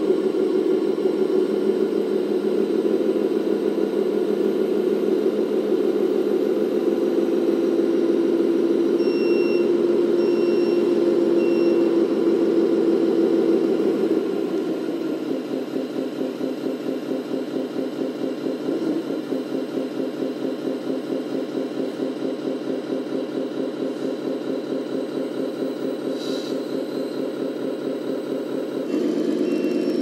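Scale RC truck's diesel engine sound running steadily. Its note drops and gets quieter about halfway through, then comes back up near the end. Three short high beeps about a second apart sound a little before the midpoint.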